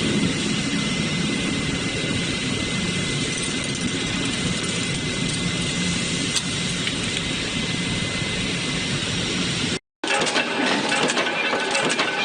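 Steady factory machinery noise with a thin high whine running through it. About ten seconds in it breaks off and turns to a busier clatter of rapid clicks over the machine sound.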